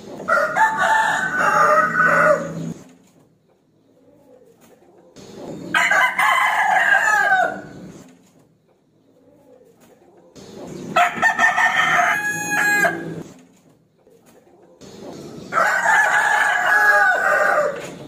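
Rooster crowing four times, about every five seconds, each crow a long drawn-out cock-a-doodle-doo that ends with a falling note.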